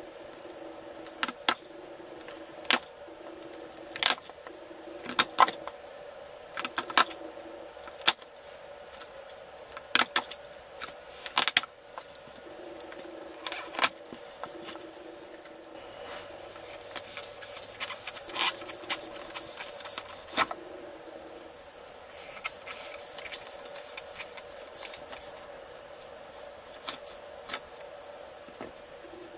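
Knife blade cutting and scraping into a hard, dry bracket fungus, a series of sharp irregular cuts, about one a second in the first half, then softer, quicker scraping strokes.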